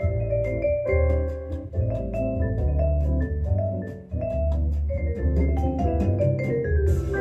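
Background music: a melody of short ringing notes on a mallet instrument such as vibraphone, over a steady bass line.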